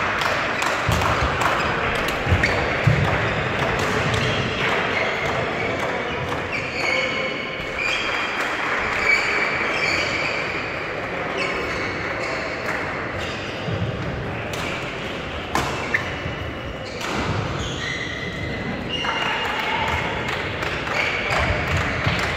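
Badminton rally: rackets striking the shuttlecock in sharp clicks at irregular intervals, with shoes squeaking on the court floor.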